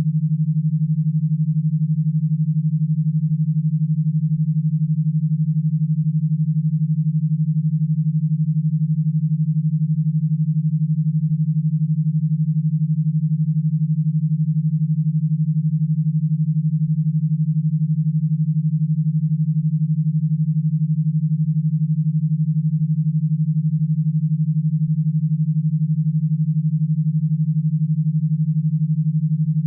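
E-stim audio signal: a low, steady synthesized tone, pulsed about twelve times a second, for driving an electro-stimulation unit.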